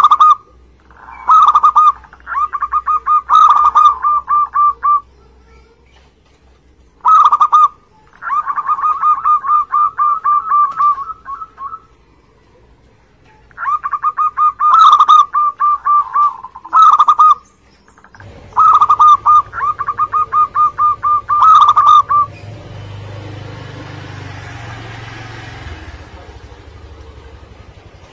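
Zebra dove (perkutut) singing: about six cooing phrases, each a loud opening note followed by a fast run of short trilled coos, with short pauses between. In the last few seconds the song stops and a steady rushing noise remains.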